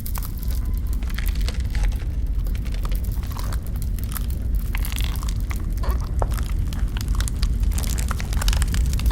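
Fire crackling and snapping over a steady low rumble.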